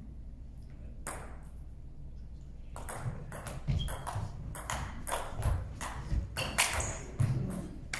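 Table tennis ball ticking off paddles and table in a fast rally. There is a single click about a second in, then quick clicks several times a second from about three seconds in, with low thuds of the players' footwork on the wooden floor.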